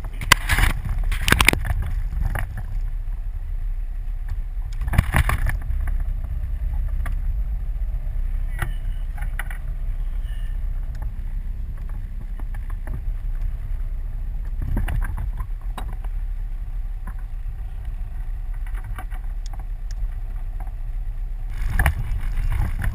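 Steady low rumble of a small fishing boat on the water, heard from its deck, broken by a few brief knocks about a second in, around five seconds, around fifteen seconds and near the end.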